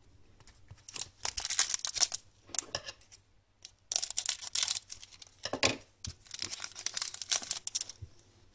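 A hockey card pack being pulled from its box and its wrapper torn open, heard as four bursts of crackly tearing and crinkling.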